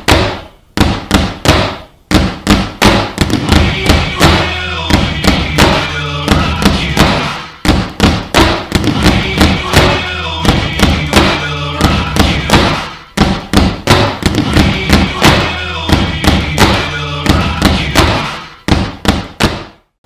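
Loud intro music with a heavy, fast drum beat over a steady bass line, fading out near the end.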